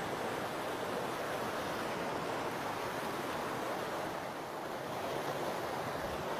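A rushing forest stream: the steady, even noise of fast-flowing water.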